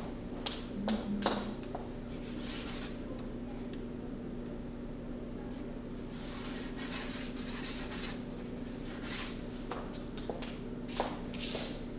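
Paintbrush rubbing across a card board in several short scratchy strokes, with a few small clicks and a steady low hum underneath.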